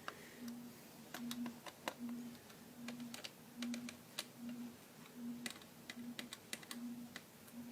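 Small sharp clicks of a screwdriver working as screws are tightened into a microwave control panel. Behind them a low tone pulses on and off about twice a second.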